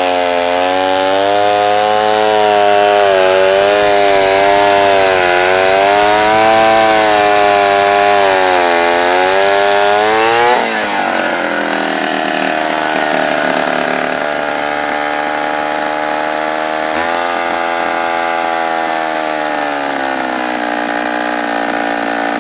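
1966 Poulan Super 31 two-stroke chainsaw running, its pitch wavering up and down as it labours through wood. About halfway the pitch drops suddenly and the saw runs on steadier at a lower speed.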